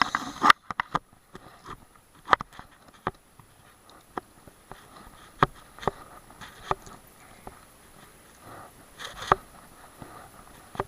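Irregular sharp clicks and knocks from fishing tackle being handled, spaced unevenly a second or more apart, with a short rush of noise at the very start.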